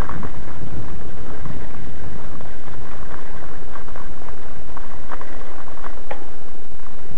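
Loud, steady wind buffeting on the microphone with rattling and knocking from a mountain bike jolting over a bumpy dirt track, many small knocks scattered through.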